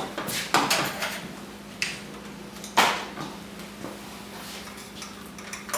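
Several sharp clicks and knocks of valve parts, fittings and tools being handled during reassembly, the loudest about three seconds in, over a faint steady hum.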